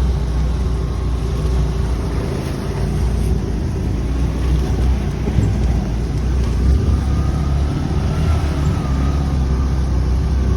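Steady low rumble of a moving road vehicle, engine and road noise, with a faint steady whine in the second half.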